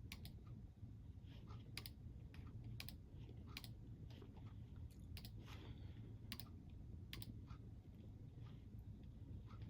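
Faint, irregular crisp crunches of a crunchy snack being chewed, one or two a second, over a steady low rumble.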